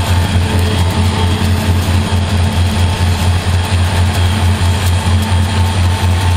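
EMD SD40-2 diesel-electric locomotive, a 16-cylinder two-stroke diesel, working under power at a steady speed. It gives a low, even throb that pulses several times a second, over continuous rushing noise.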